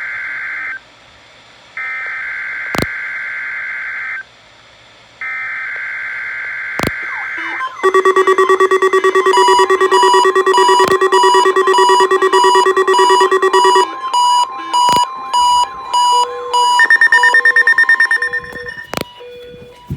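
Three bursts of NOAA Weather Radio SAME header data tones, a warbling digital screech about two and a half seconds each with a second's gap between, which signal the start of a Required Weekly Test. About eight seconds in, weather alert radios are triggered and sound their alarms: a loud steady tone for about six seconds with rapid beeping from several receivers layered over it. Intermittent beeping then continues until the alarms stop near the end.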